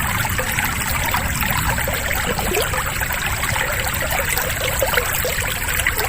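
Lovebird's long, rapid chattering 'ngekek' song: a dense, unbroken, harsh stream of very fast chirps.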